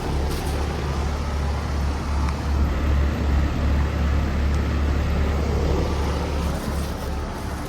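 Outdoor Carrier air conditioner condensing units running: a steady low compressor hum under the even rush of the condenser fans.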